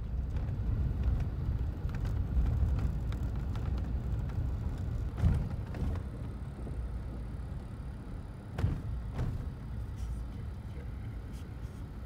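A car driving along a road: a steady low rumble of road and engine noise, with a couple of short knocks from bumps, about five and eight and a half seconds in.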